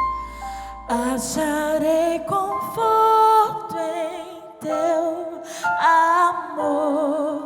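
Live worship music: a female voice singing long notes with vibrato over sustained instrumental accompaniment.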